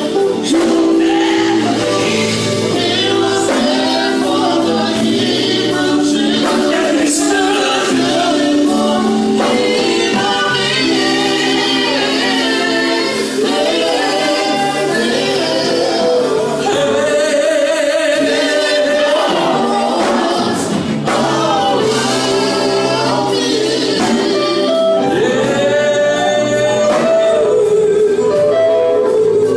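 Gospel group singing in choir-style harmony, with some long held notes, over a steady low accompaniment.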